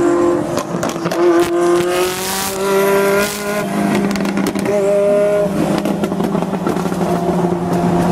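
Ferrari F40's twin-turbo V8 running under load on the road, engine pitch climbing for a couple of seconds, then dropping sharply about three seconds in as it changes gear, then climbing again.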